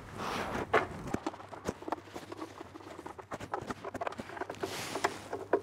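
Irregular clicks and knocks of a screwdriver and hard plastic parts against the plastic case of a Simpson & Partners Home 7kW Plus EV charger as its front parts are fitted back on, with a few louder knocks among them.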